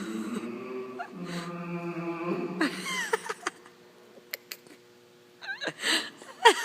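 A voice making silly noises: a low, steady, chant-like drone for about two and a half seconds, then a few short high squeaky calls that slide up and down, with quiet gaps between them.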